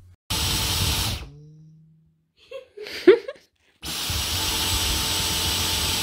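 Dyson V10 Animal cordless stick vacuum's motor switched on twice with the trigger, a short run of about a second and then a run of nearly three seconds. Each time the trigger is let go the motor cuts out and a brief low hum follows as it spins down, the funny little noise this vacuum makes on release. A short sharp sound comes between the two runs.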